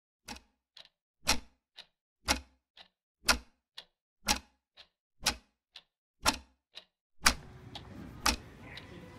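A clock ticking steadily, a louder tick each second with a fainter tick halfway between. About seven seconds in, a steady background hiss of room noise comes in under the ticking.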